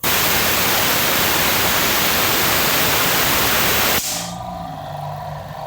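A compressed-air blast of about four seconds spinning the Honda Fit's alternator pulley with the belt off; it cuts off sharply. The freewheeling alternator is then left with a steady droning hum from its worn bearing.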